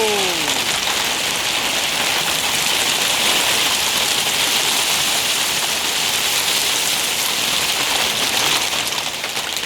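Hail falling hard: a dense, steady hiss of small hailstones striking the ground and surfaces.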